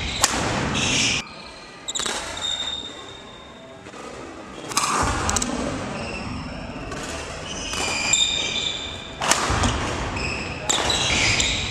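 Sports shoes squeaking on an indoor court floor in short bursts as a badminton player moves and jumps, with a few sharp smacks, the loudest about a quarter second in, echoing in a large hall.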